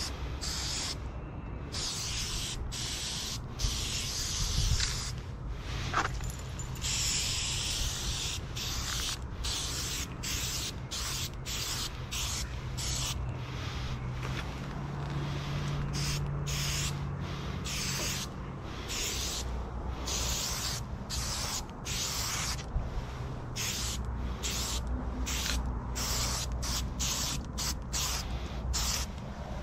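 Aerosol spray-paint can hissing in a long run of short bursts with brief gaps between them, as paint is sprayed onto rock.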